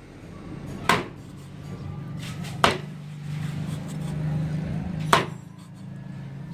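Meat cleaver chopping raw meat on a wooden chopping block: three sharp chops, with a low steady hum underneath.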